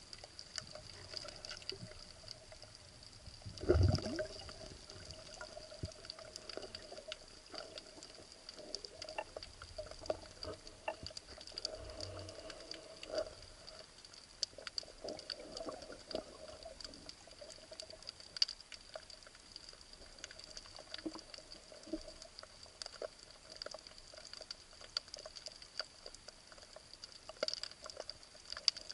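Underwater ambience on a shallow rocky reef, heard through an action camera's housing: a continuous crackle of snapping shrimp over a faint steady high whine. A brief, louder low rush comes about four seconds in.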